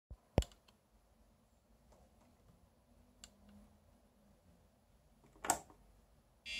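Sharp clicks from handling and working the SciSys Chess Champion Mark V chess computer: a loud one about half a second in, faint ones at about two and three seconds, another loud one near five and a half seconds. The chess computer then gives a short buzzy electronic beep at the very end.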